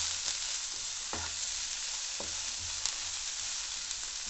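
Sliced onion, capsicum and tomato sizzling in hot oil in a non-stick pan over a high flame, stirred with a wooden spatula, with a few knocks of the spatula against the pan.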